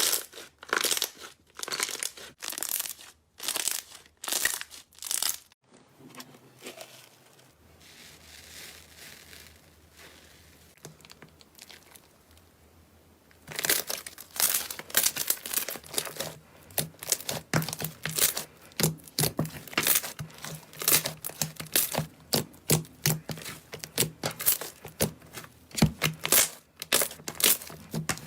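Slime being squeezed and pressed by hand, making crackling, crinkling sounds. There are loud presses about once a second at first, then a few quieter seconds after a sudden cut, then fast, dense crackling through the second half.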